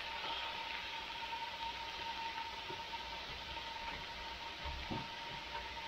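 Steak sizzling in a hot cast-iron skillet: a steady hiss, with a soft low bump near the end.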